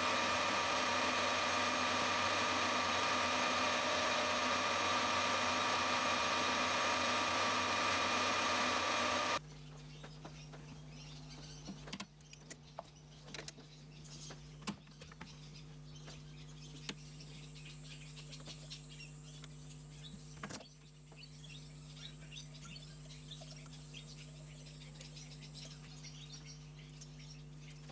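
Metal lathe running steadily, turning a small steel pivot bolt; the loud, even machine sound cuts off abruptly about nine seconds in. After that, a quieter steady low hum with scattered light metallic clicks, as a hand tap wrench cuts an internal M4 thread in the bolt held in the lathe chuck.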